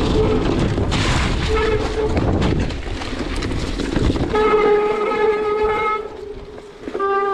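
Wind and tyre noise of a mountain bike rolling down a wet gravel trail, with the disc brakes honking in a steady horn-like tone when applied: briefly about one and a half seconds in, then for about a second and a half past the middle, and once more at the end. Honking like this is typical of wet brake rotors and pads.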